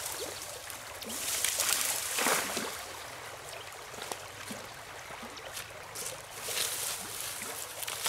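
Rain falling: a steady hiss with scattered ticks of drops, swelling louder a few times.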